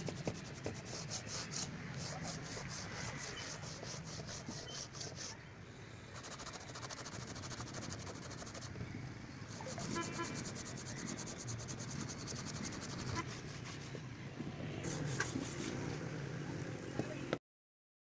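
Hand sanding the edge of a fiberglass door: quick back-and-forth rubbing strokes in several spells with short pauses. The sound cuts off abruptly near the end.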